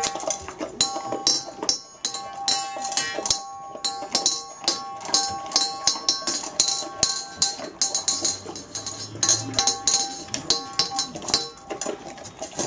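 Bernese Mountain Dog eating from a stainless steel bowl: a rapid, uneven run of crunches and clinks of food and muzzle against the metal bowl. Faint music with steady held notes plays underneath.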